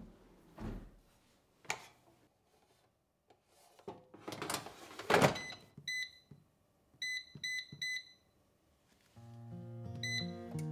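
Cosori air fryer's touch control panel beeping as its buttons are pressed: short single beeps, about six in all, four of them in quick succession in the middle. A brief louder rush of handling noise comes just before the beeps, and soft background music with plucked notes comes in near the end.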